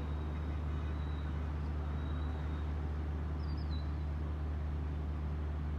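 A vehicle's engine running steadily: a constant low hum with an even hiss of noise over it. A brief high chirp about three and a half seconds in.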